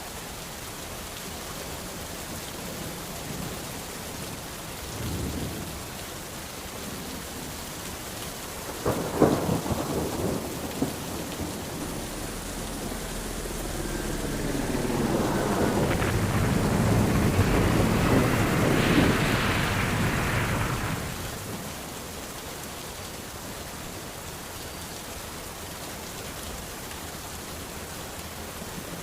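Steady rain with thunder: a faint rumble about five seconds in, a sharp thunderclap about nine seconds in followed by rumbling, then a long rolling peal that builds, peaks and fades away over several seconds in the middle.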